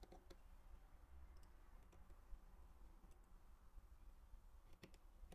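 Near silence broken by a few faint clicks of a precision screwdriver on the screws of the ear speaker cover inside an opened iPhone 12, a pair near the start and a pair near the end.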